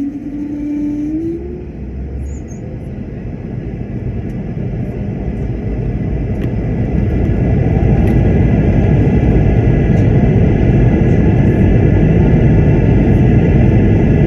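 Jet airliner engines heard from inside the cabin, the rumble building over several seconds to a steady loud roar with a faint high whine on top, as the engines spool up to takeoff power.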